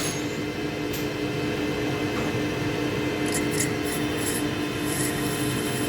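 Metal lathe running with a steady hum while the cutting tool turns brass stock, with light scratchy cutting noises about three to five seconds in.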